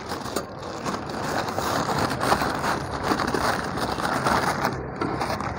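Thin polythene sheet crinkling and rustling continuously as hands wrap it around a plant pot.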